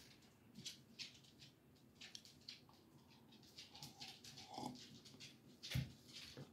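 Near silence: room tone with a few faint clicks and a soft knock near the end.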